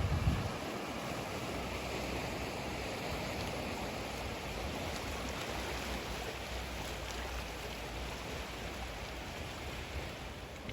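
Sea surf washing steadily against the shore, an even rush of water without a break. A brief low rumble of wind on the microphone comes right at the start.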